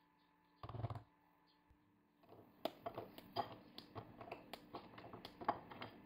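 A short thump just under a second in, then a run of small sharp snaps and clicks: a bar of white chocolate being broken into pieces by hand, the pieces dropping onto a small plate.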